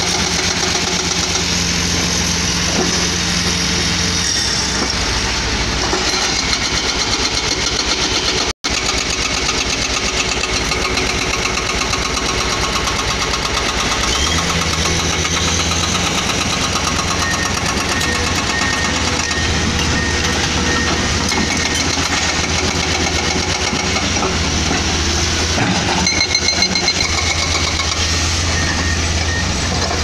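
Hydraulic breaker on a Caterpillar 336D excavator hammering limestone in rapid, continuous blows, over the steady running of the excavators' diesel engines.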